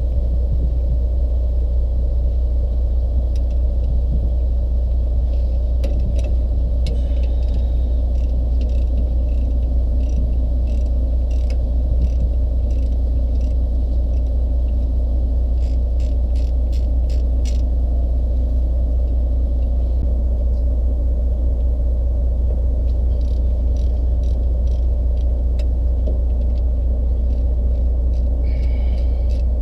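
Heavy tow truck's diesel engine idling with a steady low rumble. Over it come a few quick runs of metallic clicks from a wrench working the U-joint on a motorhome driveline as the driveline is unbolted.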